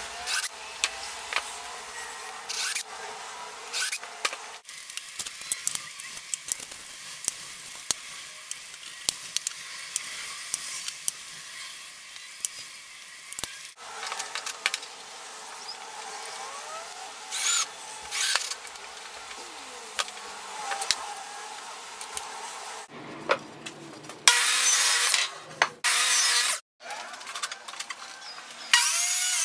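Cordless drill in short bursts, boring pilot holes and driving screws into a hardwood board, its motor pitch rising and falling with each trigger pull. Near the end a table saw starts and runs steadily.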